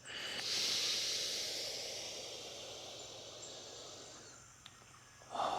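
A long, slow exhale through the mouth, the breath-out of a cat-cow stretch: a breathy hiss that starts strong and fades away over about four seconds.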